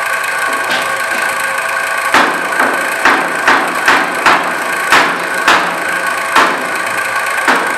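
Kitchen cleaver chopping on a plastic cutting board: about ten uneven, sharp strokes starting about two seconds in, over a steady mechanical hum.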